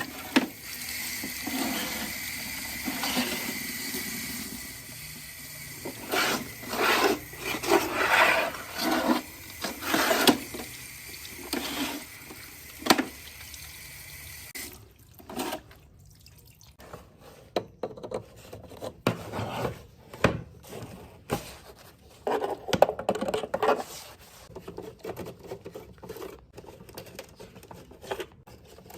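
Water running from a tap with irregular splashing, shut off about halfway through; after that come scattered short knocks and rubbing.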